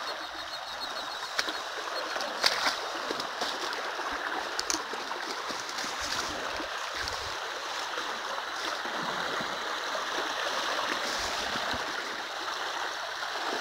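Tall dry grass and weeds rustling and swishing against legs and the phone while walking through dense vegetation, with a few sharp crackles of stems snapping or brushing.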